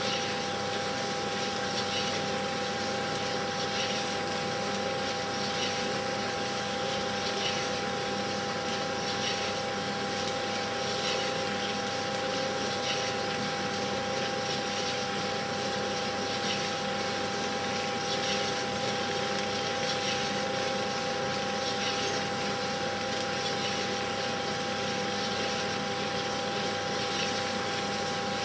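Steady hum and hiss with a few fixed tones, marked by faint ticks every second or two; it does not change with the digging shown on screen.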